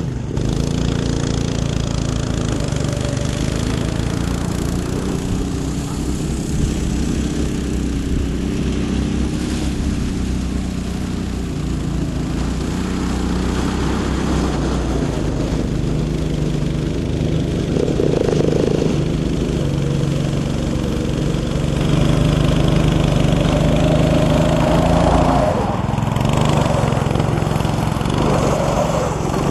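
Small go-kart engine running under load, its speed rising and falling, louder for a few seconds near the end, as the kart struggles to get going in mud.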